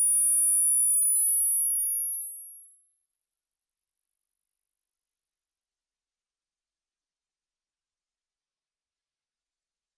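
Hearing-test tone: a single pure, very high-pitched tone climbing slowly in small steps at a steady loudness. It is a rising frequency sweep that probes how high the listener can still hear.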